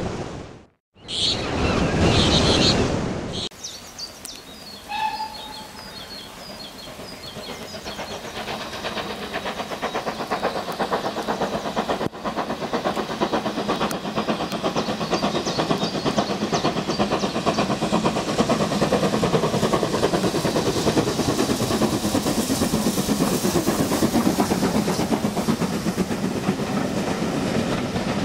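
A rushing, surf-like noise for the first few seconds, cut by a brief dropout, then a few bird chirps. A steam-hauled passenger train then grows steadily louder as it approaches and passes close by, its coach wheels clattering rhythmically over the rails.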